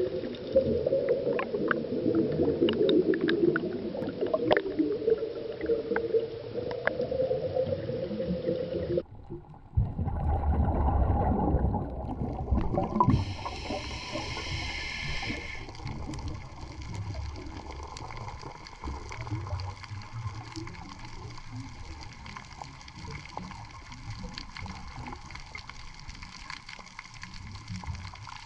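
Underwater sound recorded with reef footage: a noisy water wash and gurgling, with scattered sharp clicks in the first part. The sound changes abruptly at edits about nine and thirteen seconds in, going to a low rumble and then a fainter bed with fine clicks.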